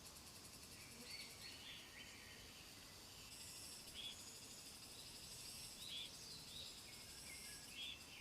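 Faint natural ambience: a steady high insect trill, with short bird chirps every second or two.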